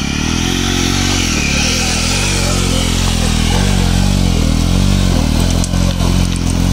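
Motorcycle engine running, its pitch rising and falling as the throttle is opened and eased, with a few short knocks about six seconds in.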